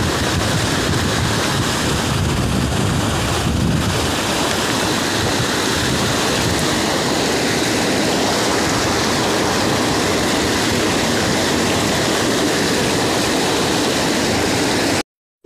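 Steady rush of wind buffeting a phone microphone over floodwater flowing around an overturned truck, cutting off abruptly near the end.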